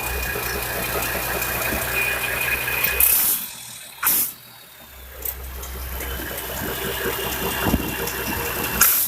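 A small motor running with a steady hum and a high whine. The whine drops out about three seconds in. Short loud rushes of noise come at about three and four seconds in and again near the end, and the hum returns after the middle.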